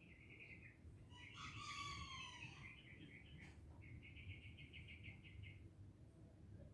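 Faint bird calls: a short phrase, a longer layered call, then a rapid trill lasting about two seconds.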